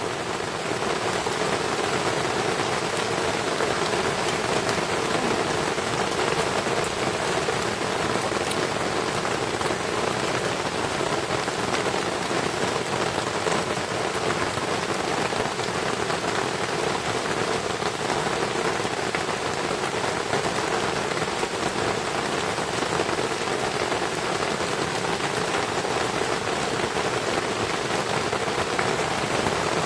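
Heavy rain falling steadily, an even unbroken hiss of drops on the hut and its surroundings.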